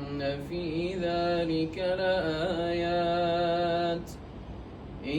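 A man reciting the Quran in a long melodic chant, holding the word 'inna' on a sustained note with small ornamental turns in pitch. The voice is dry, with no added echo. It breaks off about four seconds in for a pause of about a second.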